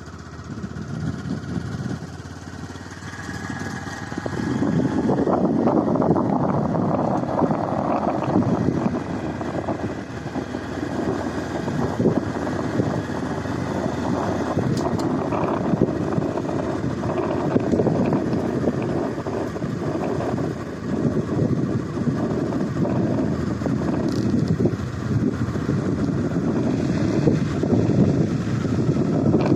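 A motor vehicle on the move: a steady engine and road rumble with gusty noise, getting louder about four seconds in.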